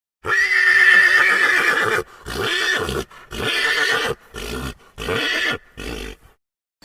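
An equine animal calling: one long pitched call followed by five shorter, gasping calls that grow briefer.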